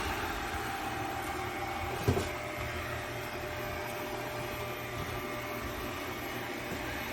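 Robot vacuum cleaner running with a steady hum, with one short knock about two seconds in.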